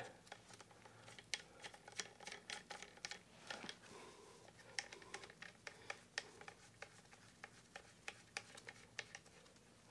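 Faint, scattered small clicks and light scratches of gloved hands working on a PCP air rifle's barrel assembly, snugging its screws hand tight.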